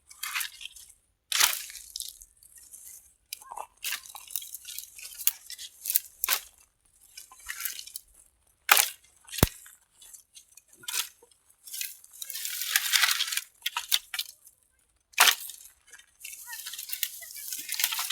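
Dry firewood sticks being gathered by hand: irregular sharp knocks and clacks as sticks strike one another, with crackling and rustling of dry twigs and leaves between them.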